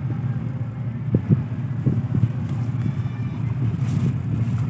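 Steady low rumble of ship engines running, with irregular short bumps on top.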